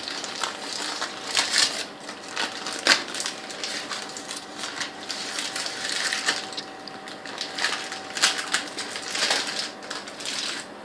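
Butter paper crinkling and crackling as it is peeled off a frozen cake, in many irregular crackles.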